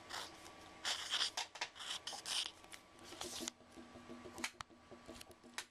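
Mechanical pencil writing on paper, its lead scratching in several short rasping strokes over the first few seconds, then a few fainter scratches and light clicks.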